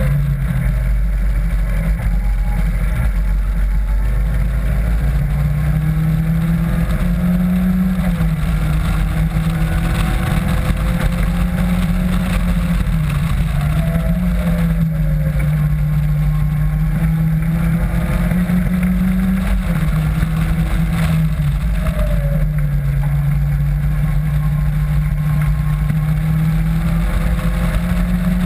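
Caterham Classic Graduate's engine at speed, heard from the open cockpit, rising in pitch through the revs and dropping back at each gear change or lift several times, under heavy wind noise on the microphone.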